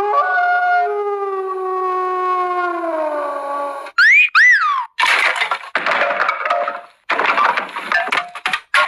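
A string of cartoon sound effects: a long pitched tone sliding slowly downward, two quick whistles that swoop up and back down, then a couple of seconds of crashing and smashing.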